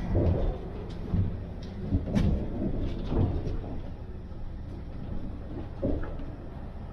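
Steady low rumble of an ICE high-speed train running, heard from inside the passenger carriage, with a handful of short knocks and bumps scattered through it.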